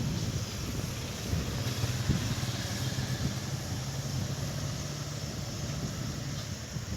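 Road vehicle engine running with road noise: a steady low engine hum under an even hiss.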